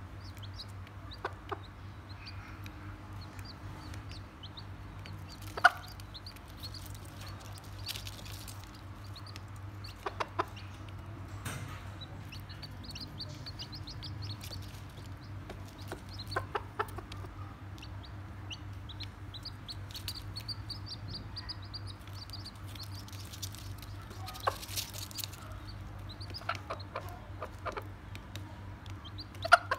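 A mother hen clucking softly while her chicks peep in quick runs of short, high calls, with a few sharp taps, the loudest about six seconds in and near the end.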